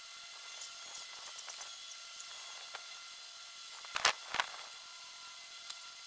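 Two short scraping knocks about four seconds in as curved strips cut from old rubber tires are handled and fitted together, over a faint steady hum.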